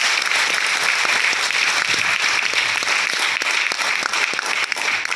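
Audience applauding: many hands clapping in a steady, dense stream.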